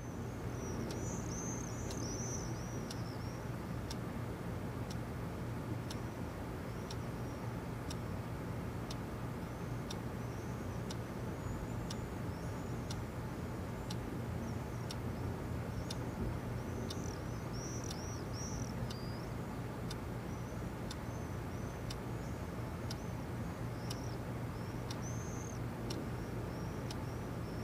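Quartz alarm clock ticking about once a second, with birds chirping in bursts over a steady low hum.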